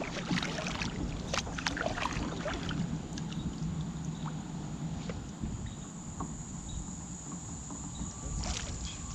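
Water lapping and splashing against a kayak hull, over a steady low rumble of wind and current. There is a quick run of small splashes and knocks in the first couple of seconds and another around the end.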